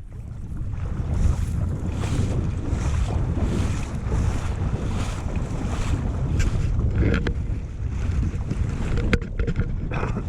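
Wind buffeting the microphone: a heavy, rough low rumble with no engine tone in it, broken by a few sharp clicks in the second half.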